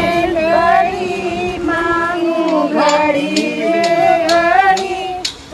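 Women's voices singing a Hindu devotional song together, with long held notes that slide between pitches.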